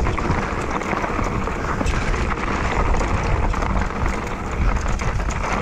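Specialized Kenevo electric mountain bike descending a dusty singletrack of loose stones: steady wind rush on the camera microphone and the tyres rolling over dirt and gravel, with many small clicks and rattles from stones and the bike.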